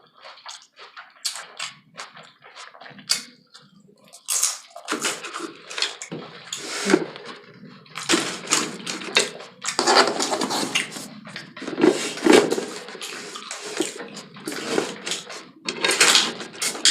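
Close-miked eating: crunching and chewing of a taco salad and its fried tortilla shell. Sparse crisp crunches for the first few seconds, then denser, continuous chewing.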